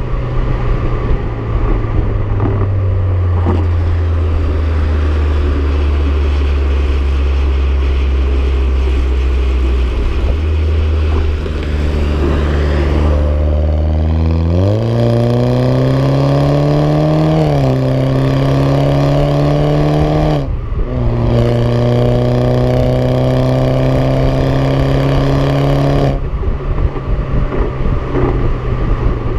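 BMW 116i's turbocharged four-cylinder engine heard through a Supersprint aftermarket exhaust close to the tailpipe: a low steady drone at light throttle, then revs climbing under acceleration, with a sudden drop in pitch about 17 seconds in and a short break about 20 seconds in as gears are changed, climbing again before settling back to a low drone near the end.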